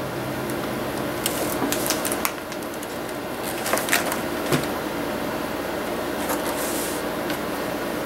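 Sony VAIO laptop being handled: two clusters of light clicks and knocks, about a second in and about four seconds in, as it is set down on a desk and its lid is opened. A steady hum runs underneath.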